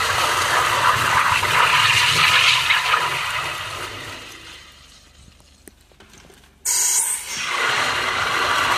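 High-pressure drain jetter hose spraying water inside a PVC drain pipe, a steady rushing hiss. It fades away over a few seconds, then comes back abruptly near the end.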